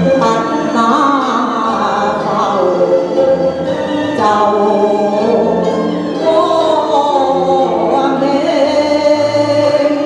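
A woman singing a Chinese operatic song into a microphone, with instrumental accompaniment, heard through a stage sound system; the voice glides and bends in long held notes.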